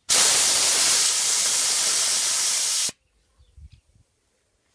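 Compressed air hissing out of the Motivair compressor's tank through its emergency valve, opened by hand for about three seconds, starting and cutting off abruptly: the valve is working and venting tank pressure.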